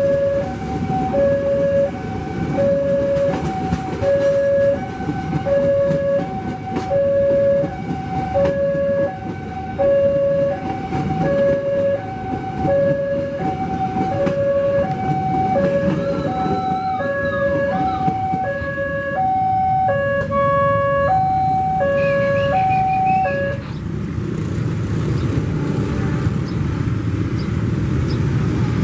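Railway level-crossing alarm sounding its two-tone chime, low then high, about once a second, over the rumble of passenger coaches rolling past. The alarm stops about 23 seconds in, leaving the steady noise of waiting traffic and motorbikes.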